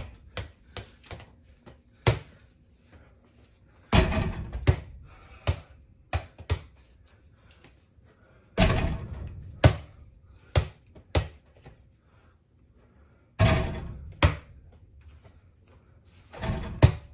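Mini basketball shots against an over-the-door backboard and rim: several loud bangs that ring on briefly, each followed by a run of smaller bounces as the ball drops and bounces on the floor.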